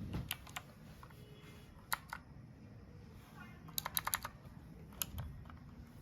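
Keys being pressed on a compact 60% RGB mechanical keyboard: scattered sharp key clicks, with a quick run of several about four seconds in.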